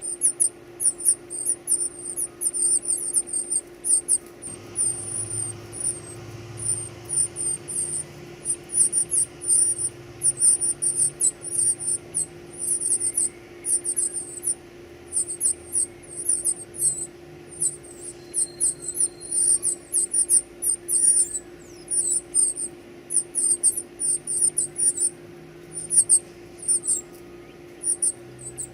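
Baby birds cheeping continuously in rapid, very high-pitched short squeaks, several a second: nestlings begging for food. A steady low hum runs underneath.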